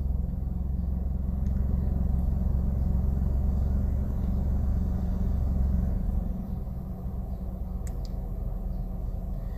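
Steady low rumble of a car running, heard inside the cabin, with a constant low hum over it; the deepest rumble eases about six seconds in.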